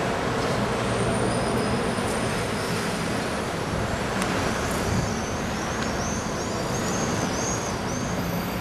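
Steady road traffic noise, with a run of faint high chirps in the second half.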